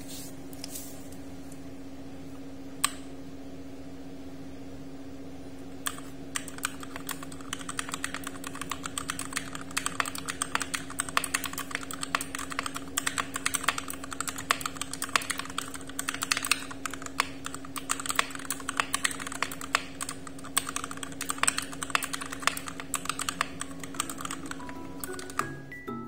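Sound test of a TOM680 mechanical keyboard fitted with lubed Gateron switches and lubed stabilizers and modded with PE foam and painter's tape. A few single keystrokes come first, then fast continuous typing from about six seconds in until just before the end. A steady low hum runs underneath.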